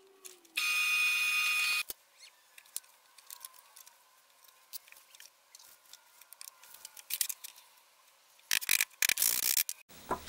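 Drill press running steadily for about a second near the start, boring a hole down the centre of a tight-fitting wooden dowel, then light handling clicks and taps, and a short rasping burst near the end.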